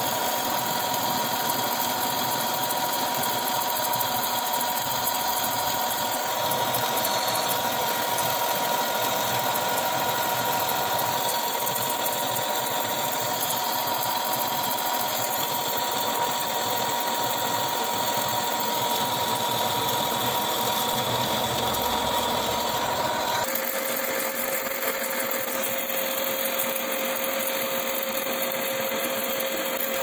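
Metal lathe turning a large clutch housing disc under flood coolant: the cutting tool makes a steady scraping hiss over the machine's running. A ringing tone in the cut shifts lower about three quarters of the way through.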